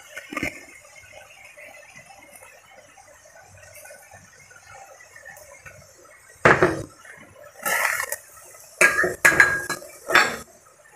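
Faint sizzling of cabbage and other vegetables stir-frying in a hot pan, then a metal spatula scraping and clanking against the pan about five times in the second half as the vegetables are stirred.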